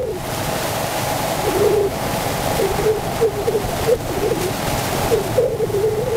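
Road and traffic noise with wind rushing past, heard from an open-sided tuk-tuk moving through city traffic. A wavering mid-pitched tone comes and goes in short stretches.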